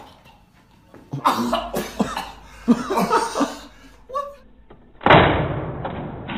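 A man coughing and gagging in short bursts after a toy-gun pellet lands in his mouth. About five seconds in, a sudden loud, muffled noise starts and slowly fades.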